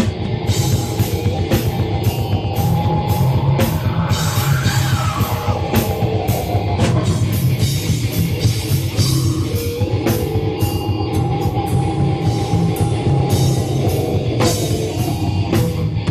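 Live rock band playing: distorted electric guitars over a steady, driving drum beat with frequent cymbal hits, and a sliding guitar line about four seconds in.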